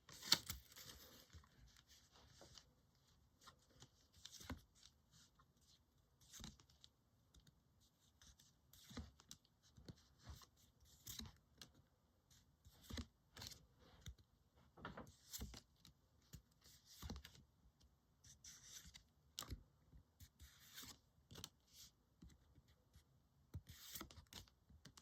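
Trading cards and a foil booster-pack wrapper being handled: a brief rustle in the first two seconds, then soft scattered clicks and scrapes as cards are slid and flipped over one another.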